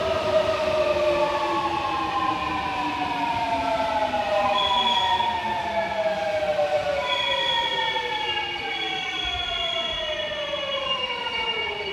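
Seoul Subway Line 8 train braking into the station: the inverter and traction-motor whine, several tones together, falls steadily in pitch as the train slows.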